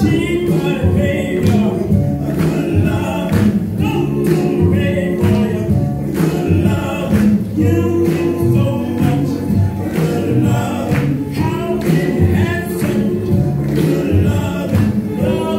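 Boogie-woogie dance music with singing over a steady beat.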